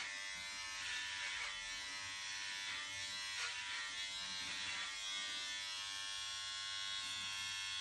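Electric hair clippers buzzing steadily as they are run over a man's head to cut his hair, the sound swelling briefly a few times as the blade passes through the hair.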